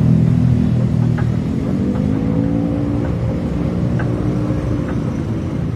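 A vehicle's motor running with a steady low hum whose pitch drifts slightly, slowly fading. Faint ticks come about once a second.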